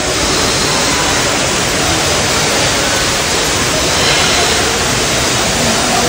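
A steady, loud rushing noise like falling water, even across low and high pitches, with no clear calls standing out.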